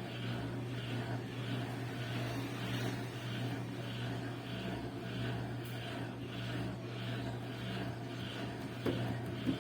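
Whirlpool washing machine running, a steady motor hum with a pulsing whir about one and a half times a second, and a couple of light knocks near the end. The machine is under test for failing to spin.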